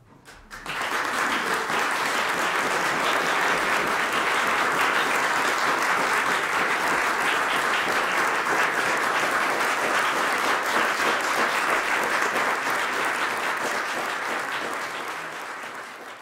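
Audience applauding, starting in a rush about half a second in, holding steady, then fading away near the end.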